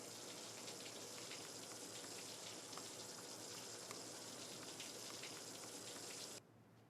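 Steady hissing noise dotted with fine crackles, which stops suddenly about six seconds in.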